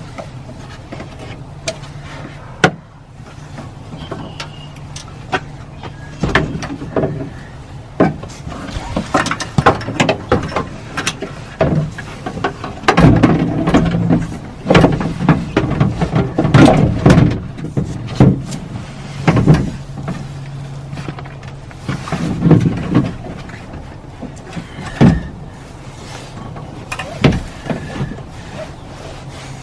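Rear door latch assembly of a Mercedes R-Class being worked loose inside the door: irregular knocks, clunks and scrapes of metal and plastic, busiest in the middle stretch, over a steady low hum.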